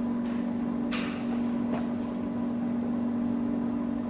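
Steady low mechanical hum, like an appliance or motor running, with a couple of brief rustles or clicks about a second in and again near two seconds.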